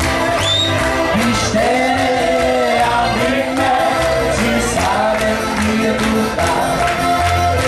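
Live band music with a sung vocal line over bass and accompaniment.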